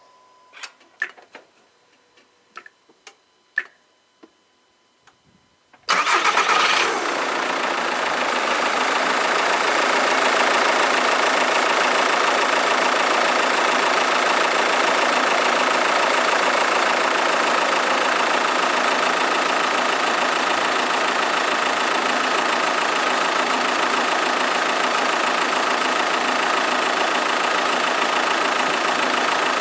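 Audi A3 2.0 TDI four-cylinder diesel engine: a few light clicks in the quiet, then the engine is started about six seconds in and settles into a steady idle.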